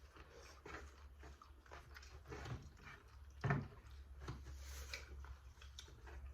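Close-up eating sounds: biting and chewing a meal of fried chicken and pancit, with small clicks and one louder knock about three and a half seconds in, over a low steady hum.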